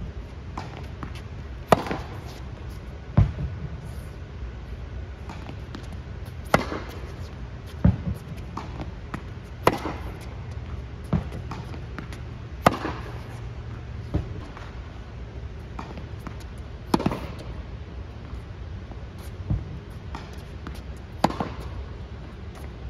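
Tennis balls struck by rackets and bouncing on an indoor hard court: a sharp pop every one to two seconds, each trailing off in the echo of the large hall, over a low steady hum.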